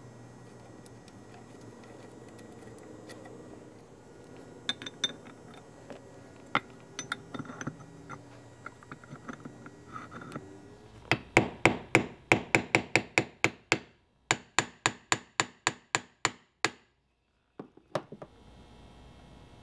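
A tool striking metal: a few scattered sharp clicks, then a fast even run of sharp metallic taps, about four a second, that breaks off abruptly twice. A low steady hum sounds under the first few seconds.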